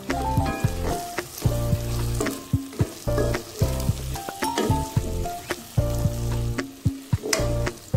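Diced potatoes, peas and carrots in tomato sauce sizzling as they fry in a pot, stirred with a wooden spatula. Background music with a beat and a melody plays over the sizzle.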